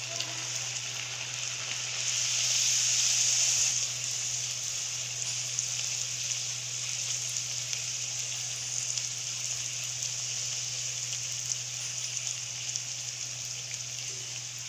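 A pakwan, a disc of maida dough, deep-frying in hot oil with a steady sizzle that is loudest from about two to four seconds in, then settles to an even sizzle.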